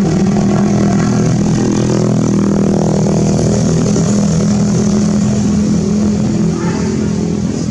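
A motor engine running steadily, with a constant low hum.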